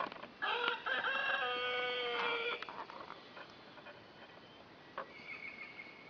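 A rooster crows once, a loud crow lasting about two seconds.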